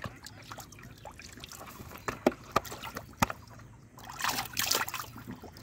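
Thick muddy water sloshing and squelching as a hand gropes through it for fish, with scattered short wet slaps and a longer splashing stretch about four seconds in.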